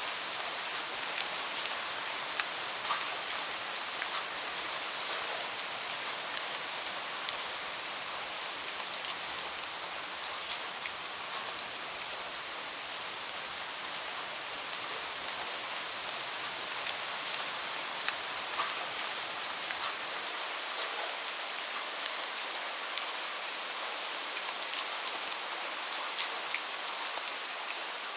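Steady rain falling, a constant hiss with many individual drops ticking sharply on a surface.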